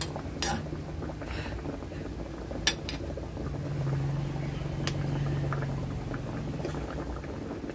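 Chicken adobo braising liquid of soy sauce, vinegar and Coca-Cola bubbling at a simmer in a wok, under a steady low hum. There are two sharp metallic clicks in the first few seconds, and near the end a metal spoon ticks against the pan as it stirs the chicken wings.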